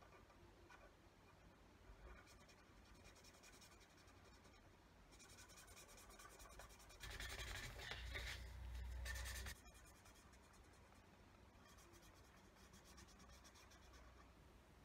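Felt-tip pen colouring in on paper: faint, quick scratchy strokes, louder for a couple of seconds about seven seconds in, then stopping abruptly.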